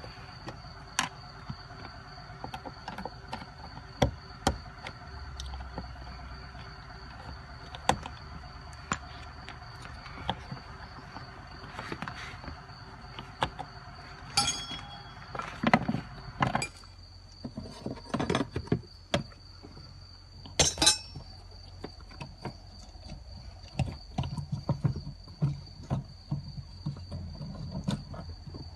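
Scattered clicks, knocks and metallic clinks of hand tools working on a car, with two louder ringing metal strikes, over a faint steady high whine.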